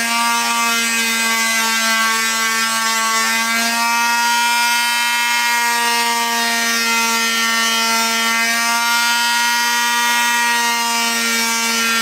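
Electric power sander running steadily against wooden toy-train track pieces, a constant hum whose pitch dips slightly now and then as it is worked along the wood.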